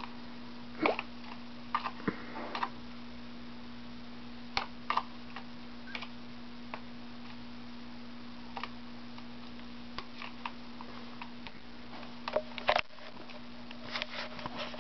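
Irregular small clicks and taps from a pet sparrow pecking at and picking apart a noodle, over a steady low electrical hum.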